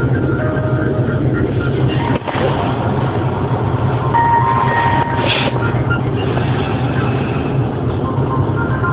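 Tinny hold music over a telephone line: short, thin melody notes buried in steady, loud line noise with a low hum.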